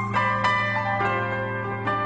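Instrumental music with no vocals: a few plucked-string notes over a held low note.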